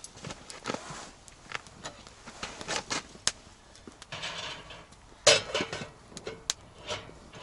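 Scattered clicks, knocks and rustling of things being handled, with one sharp knock about five seconds in.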